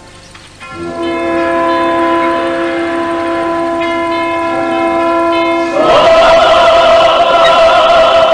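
A choir holding long sustained chords, swelling to a louder, fuller chord about six seconds in.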